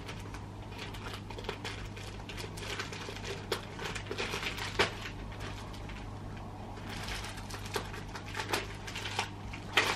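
Pink plastic mailer bag crinkling and rustling as it is handled and worked at with scissors, with scattered sharp clicks and snaps, a few louder ones in the middle and near the end.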